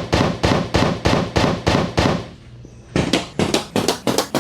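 A rapid string of sharp cracks, about five a second, that breaks off for under a second midway and then starts again. These are chiropractic adjustment cracks, repeated over and over.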